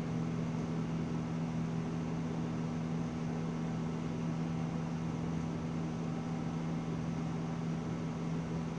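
Steady low hum with a faint even hiss under it, unchanging throughout: the room's background noise, of the kind a fan, air conditioner or sound system gives.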